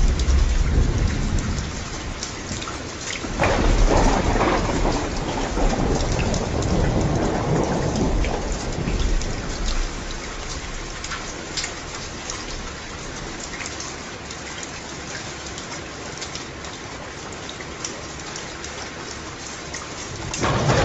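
Steady rain with many individual drops pattering on a surface, and thunder: a low rumble at the start, a sudden clap about three seconds in that rolls on and fades over several seconds, and another rumble swelling near the end.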